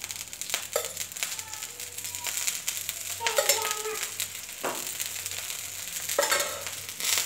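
Dosa batter sizzling on a hot plain (not non-stick) tawa as oil is spooned around it, with a few light clicks of the spoon against the griddle.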